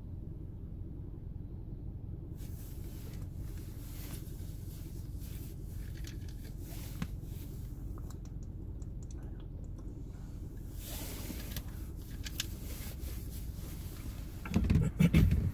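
Steady low rumble of a car heard from inside the cabin while it sits stationary in traffic, with faint scratchy clicks over it. About a second before the end there is a short, much louder burst of low rumbling, the loudest sound.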